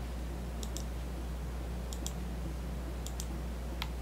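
Computer mouse button clicking, mostly in quick pairs of press and release, three pairs and then a single click, over a steady low electrical hum.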